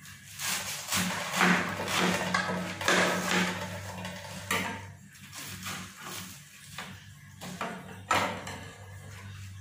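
Chef's knife slicing down through a napa cabbage half on a plastic cutting board, with the crisp leaves crunching and tearing as they are pulled apart, and a couple of sharp knocks about four and a half and eight seconds in. A steady low hum runs underneath.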